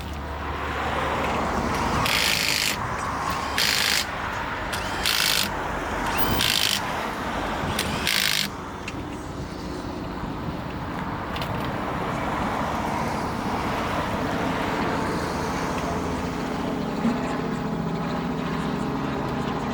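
Five short bursts of high-pitched noise over the first eight seconds, then a car engine running steadily with a low hum.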